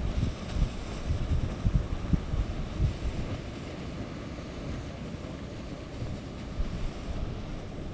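Wind buffeting the microphone in irregular low gusts, heaviest in the first three seconds, over the steady rushing hiss of Grand Geyser's water column and steam during an eruption.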